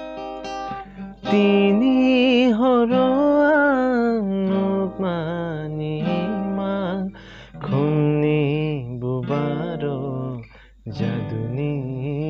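A man singing a song in Kokborok to his own strummed acoustic guitar. The guitar plays alone for about the first second before the voice comes in with long, wavering sung phrases.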